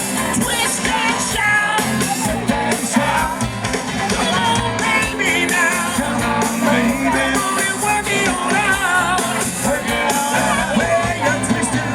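Live soul band playing rock and roll with a lead singer, drums, bass and guitars, recorded from the audience.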